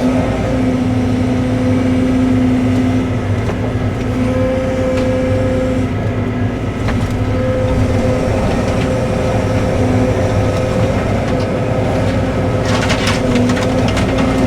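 Cat 313 excavator's diesel engine running under load, with the hydraulic pump's whine rising and falling as the boom and bucket work. About 13 seconds in, a quick run of cracks and crunches as wooden shed debris breaks.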